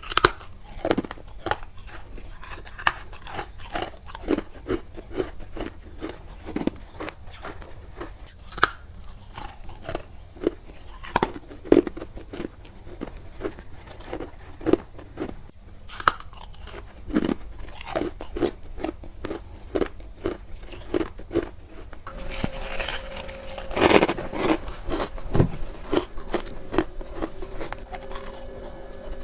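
Freezer frost being bitten and chewed close to the microphone: a run of sharp, separate crunches, roughly one or two a second. In the last several seconds the crunching grows denser and louder, with a faint steady hum under it.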